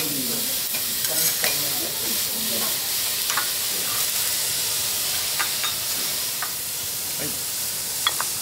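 Garlic fried rice sizzling on a steel teppanyaki griddle, with metal spatulas scraping and clicking against the plate as the rice is gathered and scooped into bowls.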